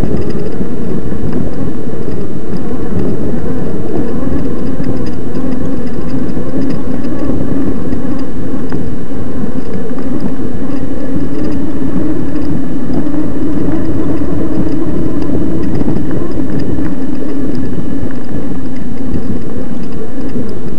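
Electric mountain bike riding over rough grassy ground at about a quarter motor power while being pedalled: a loud, rough rumbling with a steady hum from the electric motor underneath.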